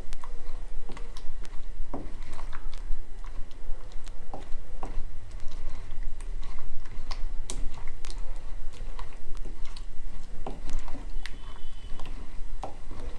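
Pestle pounding and grinding tomatoes in a mortar: a run of irregular knocks, about one or two a second, with a steady low hum underneath.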